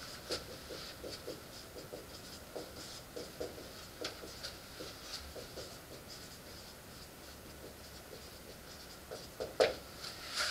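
Dry-erase marker writing on a whiteboard: a quiet run of many short strokes as letters are written, with one louder stroke near the end.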